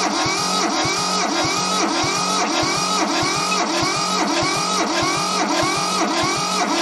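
Mitsubishi diesel tractor engine cranking over on its electric starter, labouring through compression strokes about twice a second without firing. The owner suspects low compression and too slow a cranking speed in the cold.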